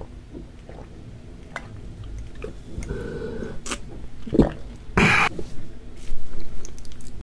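Gulping water from a glass mug, with small swallowing clicks. About four seconds in there is a louder knock, followed by a short breathy burst. The sound cuts off abruptly near the end.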